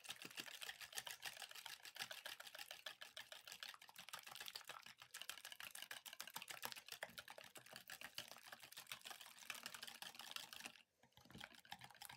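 Eggs and sugar being beaten by hand in a plastic bowl until pale: fast, faint clicking of the utensil against the bowl, with a brief pause near the end.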